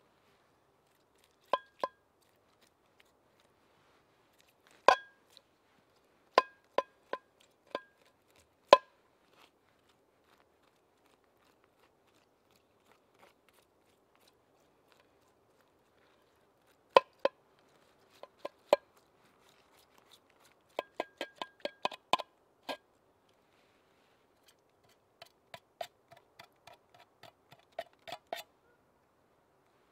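A knife punching and cutting through the thin steel wall of a tin can: sharp metallic clicks and snips in bursts with pauses between, the louder strikes making the can ring briefly.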